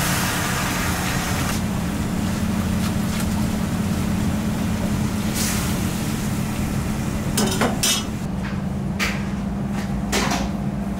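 Liquid seasoning poured over sliced bamboo shoots in a large aluminium pot, then a ladle stirring them, with a few knocks of the ladle against the pot about seven to eight seconds in. A steady low kitchen hum runs underneath.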